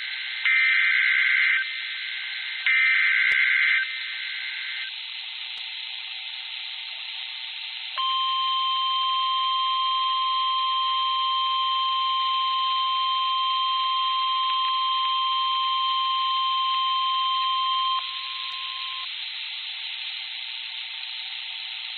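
Emergency Alert System broadcast over weather radio: the last two of three short, buzzy SAME data header bursts, about a second apart, then a few seconds of radio hiss. After that comes the steady single-pitch weather radio warning alert tone, held for about ten seconds before cutting off to hiss, signalling that a warning message follows.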